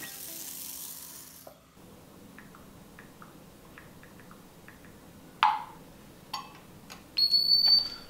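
Electronic alert beeping, a steady high tone held under a second, which starts about seven seconds in and repeats right after: it signals that the waffles are ready. Before it there is a soft hiss in the first second and a half, then a couple of light clicks.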